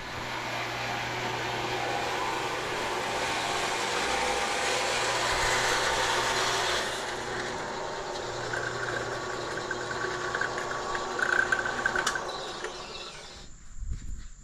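Power saw running and cutting, with a steady hum under it, then switched off and winding down near the end.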